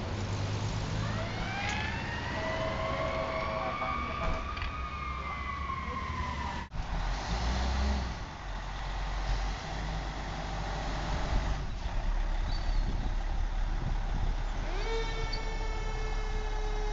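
Fire engine siren wailing, its pitch rising and then falling over several seconds. After a sudden cut, a fire truck's engine runs as it pulls out. Near the end a siren or air horn starts, one strong tone slowly dropping in pitch.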